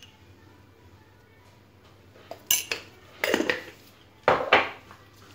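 Kitchen utensils clinking and clattering against a frying pan while ground pepper is added to softened onions. The first couple of seconds are quiet, then there are three short bouts of clatter in the second half.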